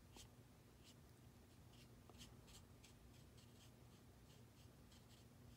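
Faint, short, scratchy strokes of a watercolor brush across paper, about two a second.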